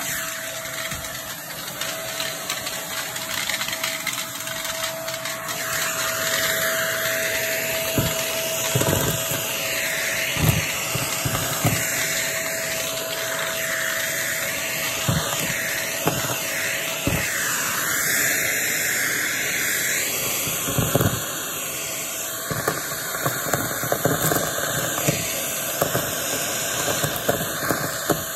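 Shark vacuum cleaner running with a steady whine and rushing air, crackling and clicking irregularly as crunchy debris is sucked up.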